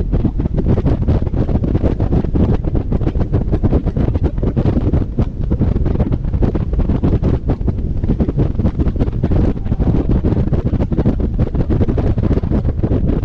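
Wind buffeting the microphone of a camera mounted on the outside of a moving car: a loud, constant low rumble that flutters rapidly, mixed with the car's road noise.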